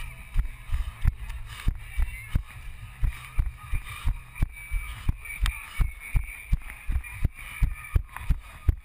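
Running footfalls carried through a head-mounted action camera: a steady run of low thuds, about three a second, each stride jolting the camera.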